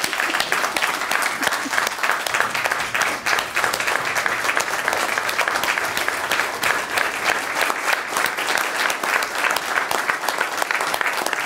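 Audience applauding: many people clapping together steadily throughout.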